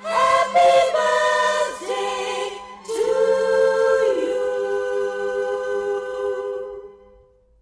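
Vocal music: several voices holding long sung notes, ending on one long held chord that fades out near the end.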